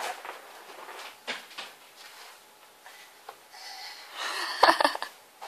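Baby breathing and sniffling, settling after a bout of crying. A little over four seconds in comes a short louder sound, with two sharp knocks close together.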